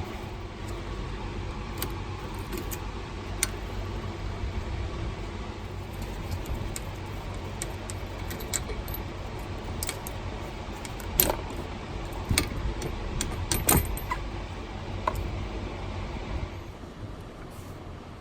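Metal hand tools and parts clinking and rattling, with scattered clicks and a cluster of louder clinks past the middle, over a steady low hum.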